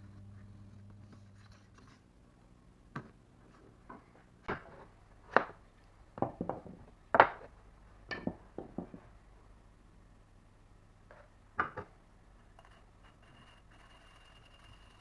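Irregular light knocks and clicks, about a dozen in all and some in quick pairs, as of small objects being handled and set down on a work surface. A low steady hum stops about two seconds in.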